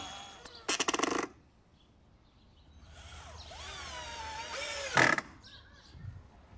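Cordless drill driving screws into a wooden post. There is a short burst of motor whine under load about a second in, and a second, briefer burst about five seconds in.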